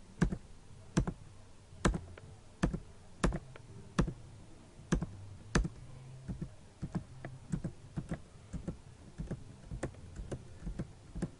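Repeated sharp clicks at a computer, one about every two-thirds of a second, then lighter and quicker taps in the second half, as a long run of permission prompts is confirmed one after another.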